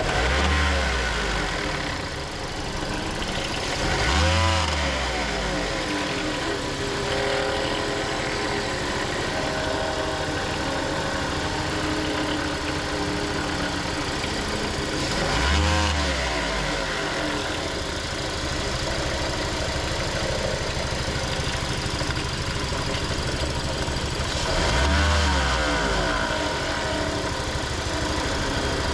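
Toyota Voxy engine running at idle with a loud abnormal mechanical noise, which the mechanic traces to the alternator. The running sound swells briefly four times.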